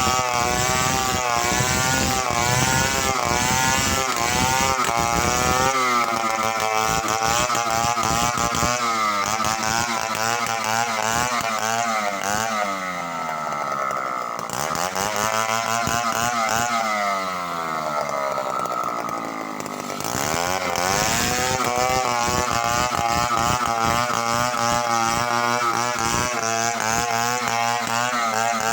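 Chainsaw running under load while cutting timber, its engine pitch sagging and rising again over and over.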